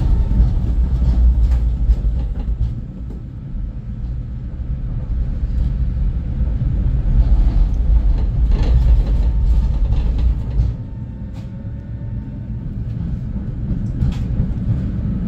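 Ride noise inside a tram running along street track: a steady low rumble of wheels on rail with a few knocks, easing off twice.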